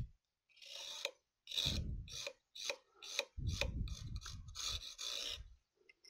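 Utility knife blade scraped along the edge of a circuit board's edge connector in a series of short strokes, about two a second. The edge is being smoothed into a bevel so it will not snag connector spring contacts.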